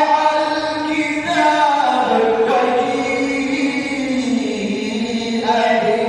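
A male reciter chanting the Quran in the melodic tajweed style, drawing out long held notes that glide and step slowly in pitch.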